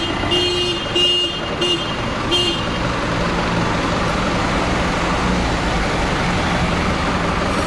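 Forklift engine running steadily while lifting a heavy crate. Several short horn beeps at uneven spacing sound over it in the first two and a half seconds.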